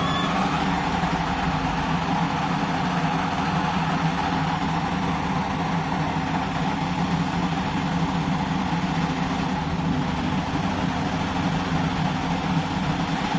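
Engine of heavy drilling machinery running steadily at a constant speed.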